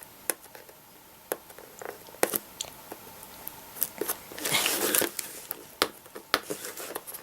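Product packaging being handled and pulled open: scattered sharp clicks and taps, with a rustling tear of about a second roughly halfway through.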